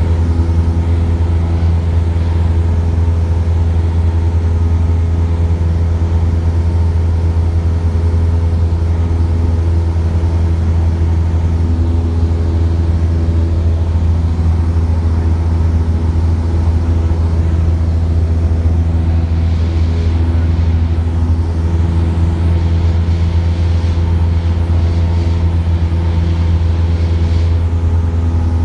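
Light propeller aircraft's engine and propeller droning steadily in climb after take-off, heard inside the cabin: a loud, even low hum with steady overtones.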